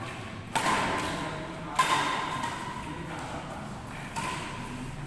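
Badminton rackets striking a shuttlecock in a rally: three sharp hits, the first two a little over a second apart and the third about two seconds later. Each hit has a short ringing echo as in a large hall.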